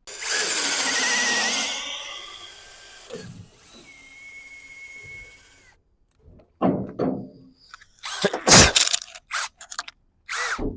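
Power drill running a hole saw: a loud cutting whine for the first couple of seconds, then a quieter steady whine as it spins on. Several knocks and clatters follow in the last few seconds.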